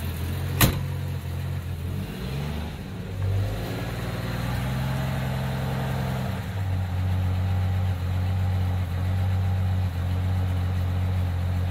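1965 Plymouth Barracuda's 225 slant-six engine idling just after a cold start with the choke set, which the owner thinks is set a little too tight. A single sharp click about half a second in; the engine note shifts briefly around two to three seconds in, then settles to a steady idle.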